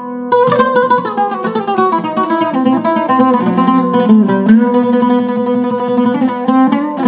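Solo oud with a cedar top and African mahogany back, plucked with a plectrum in quick melodic runs and held notes. It pauses for a moment at the very start.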